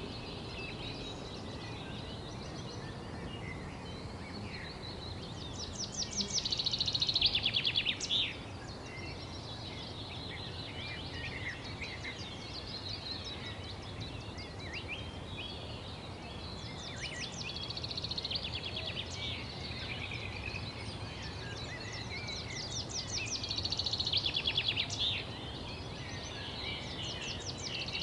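Several wild birds chirping and singing over a steady background hiss. A louder, rapid trilling song comes twice: about six seconds in, and again near the end.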